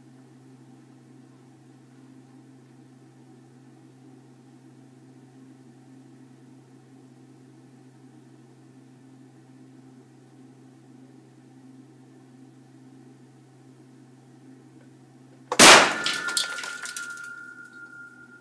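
A steady low hum, then near the end one sudden very loud bang, followed by about a second and a half of clattering and a high ringing tone that fades slowly.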